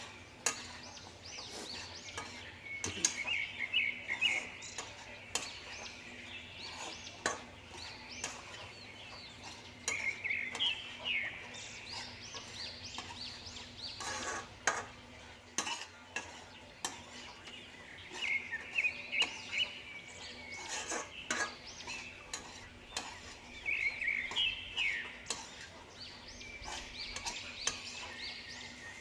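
A metal spatula stirring and scraping diced potatoes in a kadhai (wok), with frequent irregular clinks and scrapes against the pan and a faint sizzle. Birds chirp in short bursts several times.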